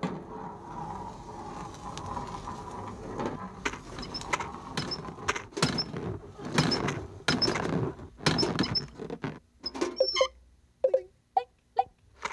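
Mechanical cartoon sound effects: a steady whirring for the first few seconds, then a run of sharp clacks and clunks, two or three a second, and near the end a few short squeaky chirps.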